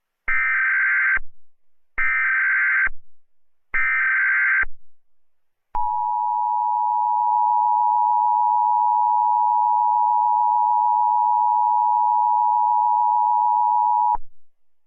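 Emergency Alert System signal: three short bursts of SAME header data, each about a second long, then the two-tone attention signal held steady for about eight seconds before cutting off. This is the tone sequence that opens an emergency alert broadcast.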